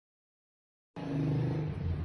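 Dead silence for about a second, then a low rumbling hum starts suddenly and carries on steadily.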